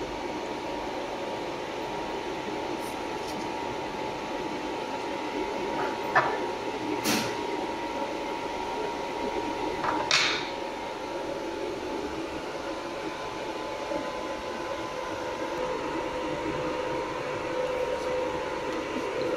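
Steady machine hum of a jewelry laser welding machine running, with a held tone over fan-like noise. A few brief knocks and scrapes partway through as a small metal spanner is picked up and handled on the table.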